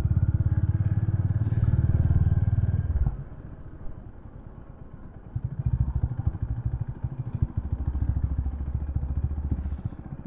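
Honda CB350 H'ness single-cylinder motorcycle engine running at low speed in a low gear over a broken, rough road. The engine is loud and pulsing, eases off about three seconds in, picks up again about two seconds later, and eases once more near the end.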